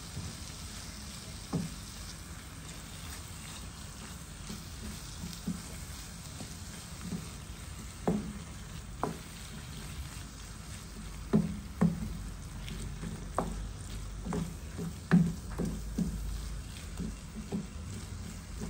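Filling of chopped onion, peppers and turkey frying in a nonstick pan, with a steady sizzle. A wooden spoon stirs it, knocking and scraping against the pan at irregular intervals, more often and louder in the second half.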